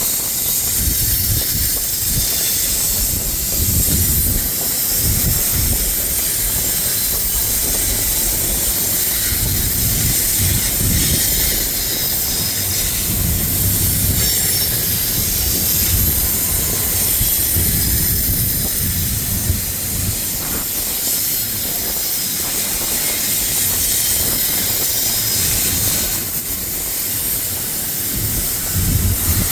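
BNSF freight train cars rolling past: a steady, uneven rumble of wheels on the rails under a constant high hiss.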